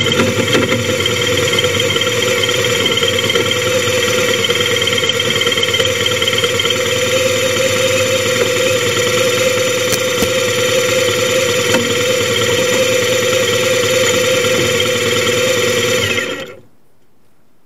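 Motorcycle engine idling steadily, then switched off about a second before the end.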